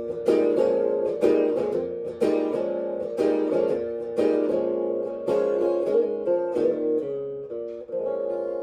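Steel-string acoustic guitar strummed in steady chords, a strong stroke about once a second with lighter ones between; about eight seconds in a last chord is struck and left to ring as the song ends.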